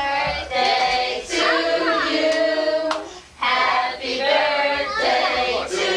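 A group of voices, children among them, singing in long held notes, with a short break about three seconds in.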